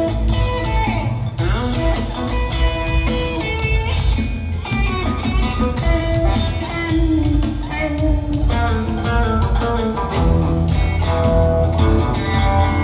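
Live rock trio playing an instrumental passage: electric guitar notes over bass and drums, with a bent guitar note about a second in. Recorded on a phone from the audience.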